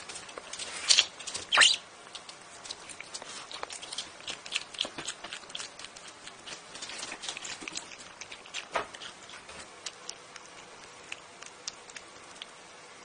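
A prairie dog eating a piece of vegetable held in its paws. Two loud crunching bites come about a second in, then rapid small crisp chewing clicks that thin out toward the end.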